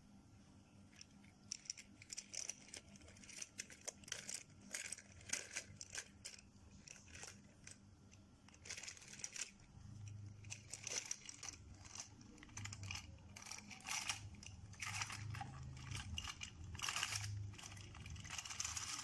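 Toys being handled and moved by hand: irregular light rustles, clicks and scrapes, with a faint low hum joining in about halfway through.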